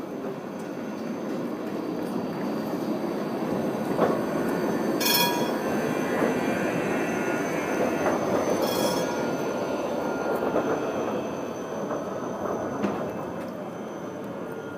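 BVG GT6N low-floor tram passing close by: the rumble of its wheels on the rails swells and then fades as it goes past. Two short, high-pitched metallic squeals stand out, about five and nine seconds in.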